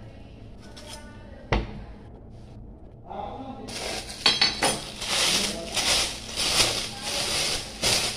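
Kitchen handling noise: a single sharp knock about a second and a half in, then, from a little past halfway, a loud, uneven clatter and rustle of kitchen things being handled.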